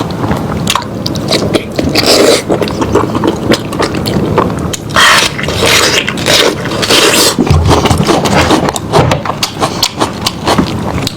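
Close-miked eating of cooked lamb head meat: chewing and sucking meat off the bone, a dense run of short wet clicks with a few longer hissing sucks.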